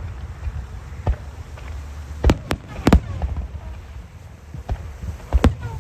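Aerial display firework shells bursting: separate sharp bangs, loudest in a cluster about two to three seconds in and a close pair near the end, over a steady low rumble.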